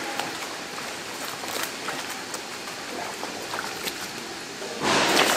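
Water splashing and gurgling as napa cabbage halves are moved by hand through a stainless-steel washing tank. A louder rush of bubbling water comes in about five seconds in.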